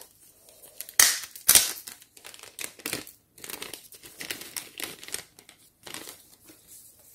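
A small clear plastic packaging bag crinkling as hands open it to take out tiny fabric doll blankets. Two sharp, loud crackles come about a second in, then softer, intermittent crinkling.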